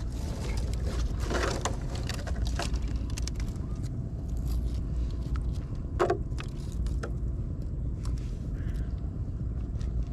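Hands splashing lightly in shallow lake water among dead branches, with a louder splash about six seconds in, over a steady low rumble.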